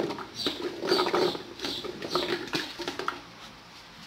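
Peeled garlic cloves tumbling from a plastic bowl into a plastic blender jar: a quick, irregular patter of light knocks that tails off about three seconds in.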